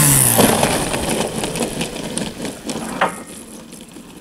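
A scale RC warbird model's engine running at low throttle as the plane rolls out on grass after landing. It is loudest at first and fades, with a single sharp knock about three seconds in.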